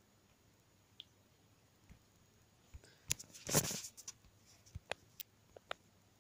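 Handling noise from a plastic desk fan being moved and turned: a faint click, a brief rustle about halfway through, then a scatter of sharp light clicks.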